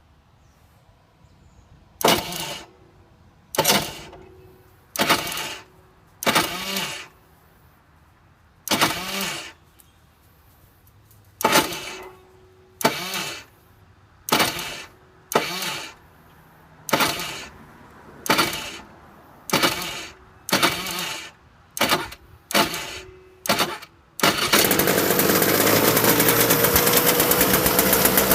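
Vortex Mini Rok kart engine's electric starter whirring in about sixteen short bursts, each fading out, as the starter is tried again and again; the Bendix is not engaging the starter gear, so the engine is hard to start. About 24 seconds in the engine catches and runs loudly and steadily.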